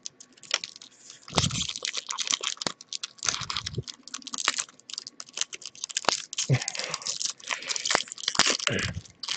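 Foil wrapper of a Pokémon trading-card booster pack torn open and crinkled by hand, the cards slid out, giving many irregular crackles and rustles with a couple of dull thumps.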